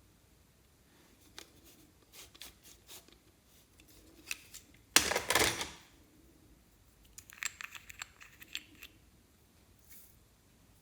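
Hand-handling noises from slime-making: scattered sharp clicks and crackles, with one loud rustling rush lasting under a second about halfway through.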